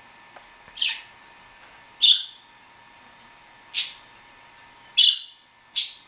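Pet budgerigars (parakeets) giving five short, sharp chirps, spaced about a second apart.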